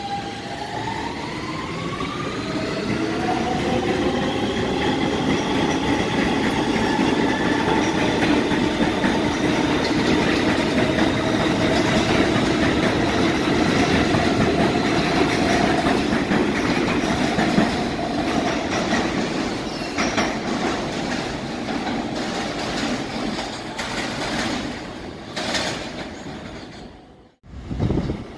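R160 subway train's traction motors whining up in pitch as the train gets under way, then holding a steady whine over wheel and rail noise with a clickety-clack. Near the end the sound fades, then cuts suddenly to another train.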